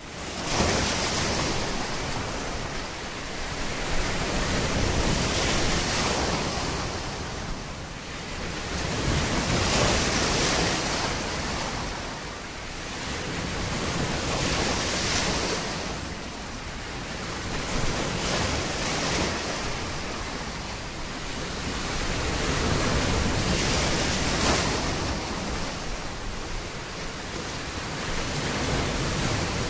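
Small sea waves breaking and washing up on a beach. The surf swells and fades every few seconds.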